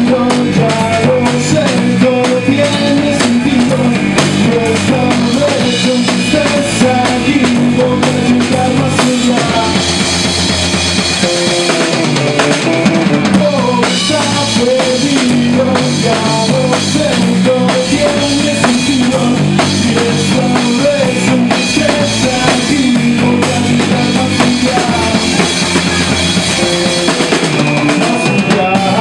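Band music with a drum kit played throughout, its drum and cymbal strokes under pitched instruments.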